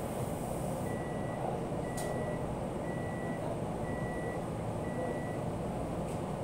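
An electronic appliance beeps five times, each beep short and even in pitch and about a second apart, over a steady low hum and rush of background noise.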